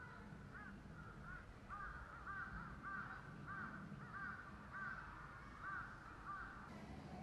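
A bird calling a steady series of about ten short calls, each rising and falling in pitch, roughly two a second.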